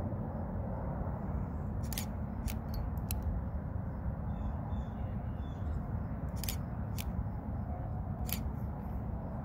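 Wind from an oncoming dust storm rumbling on the microphone in an uneven roar. Several sharp clicks sound over it, and a few faint high chirps come about halfway through.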